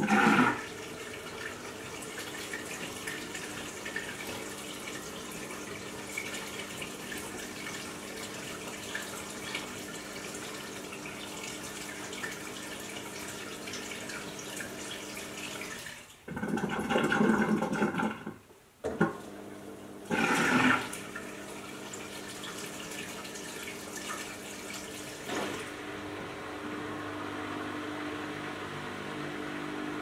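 Aldi front-load washing machine in its wash cycle: water rushing and swishing in the drum over a steady motor hum. The water is louder at the start and again about sixteen and twenty seconds in. Near the end the water noise eases and a lower hum comes in.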